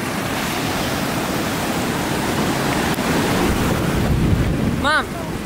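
Ocean surf washing in on a sandy beach, a steady rush of breaking waves, with wind rumbling on the microphone, strongest toward the end. A short voice sound breaks in near the end.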